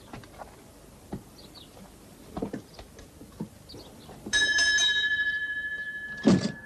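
Scattered light knocks as people climb into the seats of an old 1912 fire engine. About four seconds in, the engine's mounted bell is struck once and rings on, slowly fading, with a loud knock near the end.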